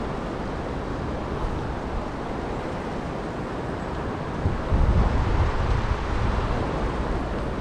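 Steady rush of river water flowing over a stream bed. Wind buffets the microphone in gusts from about halfway through.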